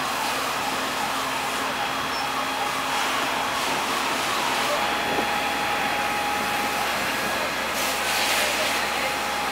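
Steady rushing noise at a building fire, from fire hoses spraying and fire engines running, with voices underneath.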